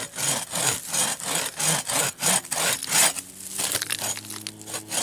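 Hand saw cutting through a thin stick in quick, short back-and-forth strokes, about three a second. The strokes stop about three and a half seconds in.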